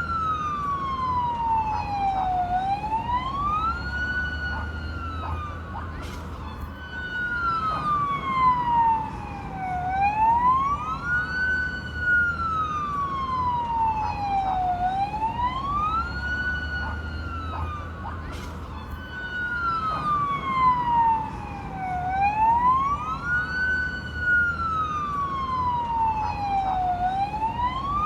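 Fire truck siren wailing, its pitch rising quickly and falling back more slowly about every four seconds, with a low rumble underneath.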